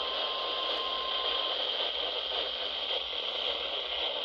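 12-261 weather radio hissing with static on a weak or empty weather channel. A faint steady tone stops about a second and a half in.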